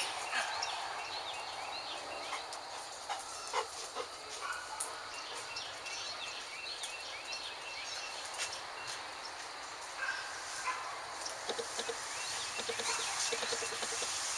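Birds chirping and calling in short repeated notes, with a few faint clicks.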